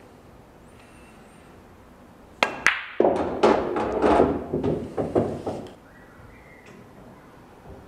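A pool shot on a Diamond pool table: two sharp clicks about a third of a second apart, the cue tip striking the cue ball and the cue ball hitting the object ball in a stun shot, then a loud rattling rumble of about three seconds as the pocketed ball drops and rolls through the table's ball-return channel.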